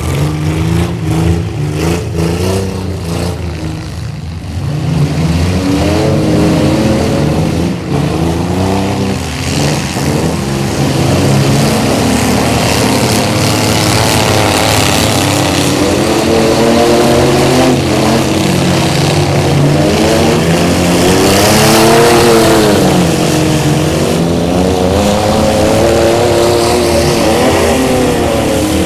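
Several demolition-derby trucks' engines revving hard at once, their pitches rising and falling as they accelerate and spin their wheels in deep mud. A few knocks come in the first seconds and again about nine seconds in.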